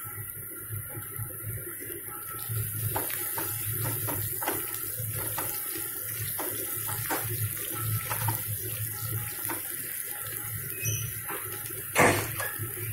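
Sliced onions sizzling in hot mustard oil in a non-stick kadhai, being fried to light brown. A slotted spatula stirs them, scraping and clicking against the pan over and over, with a louder knock near the end.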